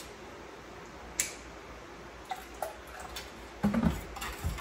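Vinegar poured into milk in a steel pot to curdle it for paneer, with a sharp click about a second in and a few lighter ticks and taps as a spoon stirs against the pot. A short low bump near the end.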